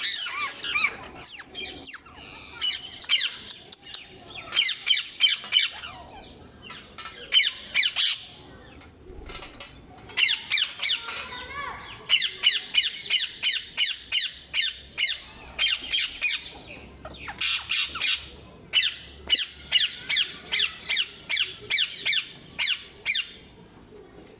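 Rose-ringed (ring-necked) parakeets squawking: runs of short, harsh, high calls at about three or four a second, in bursts of several calls with brief pauses between.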